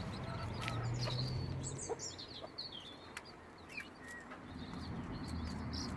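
Young chicks peeping: many short, high chirps, irregular and overlapping, over a low steady hum.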